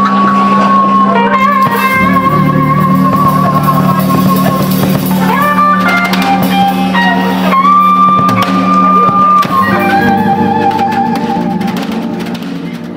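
Electric guitar playing a sustained lead line: long held notes with vibrato and upward string bends, over a steady backing of bass notes and drums. The sound fades out near the end.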